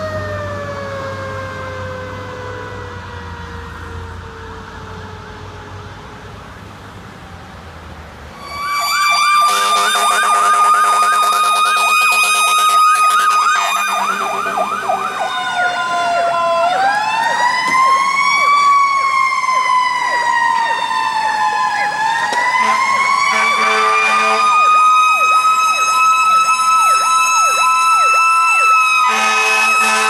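A fire truck's siren fades and falls in pitch as the truck drives away. About eight seconds in, a much louder fire truck siren takes over, cycling from a fast yelp to a slow wail that rises and falls, then back to a fast warble. Steady lower horn tones sound over it at times.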